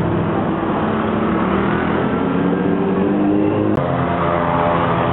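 Sports car engine running past close by, its note climbing as it accelerates. About three and a half seconds in the sound cuts abruptly to another engine whose note also rises as it revs.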